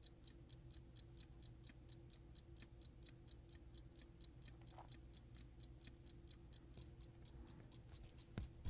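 Antique fusee pocket watch ticking faintly and evenly, about five ticks a second: the freshly reinstalled balance has sprung to life and the movement is running again.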